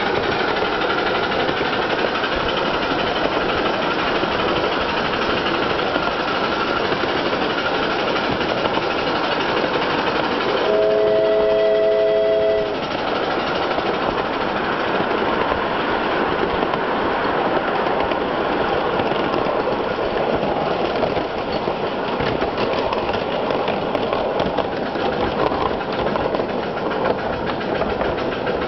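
Miniature ride-on steam locomotive, a 1961 English-built Britannia, running along its track with a steady rush of exhaust and wheel-on-rail noise. About eleven seconds in, its whistle sounds once: a three-note chord held for about two seconds.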